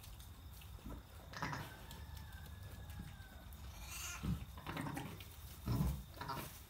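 Sheep making several short, low calls, the loudest a little before the end, with a faint thin call about a second and a half in.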